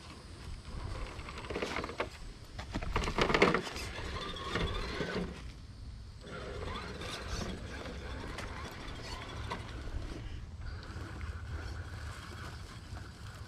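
Electric motor and gearbox of an Element RC Enduro Trailwalker crawler truck whining in short rising and falling runs as it drives over dirt, mixed with louder crunching and rustling bursts, the loudest about three and a half seconds in.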